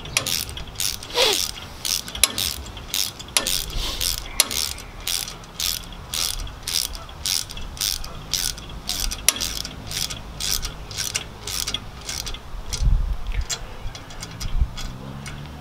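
Ratcheting T-handle Allen (hex) wrench clicking as it tightens a bolt, in a steady run of about two to three clicks a second that thins out near the end. A couple of low thumps come near the end.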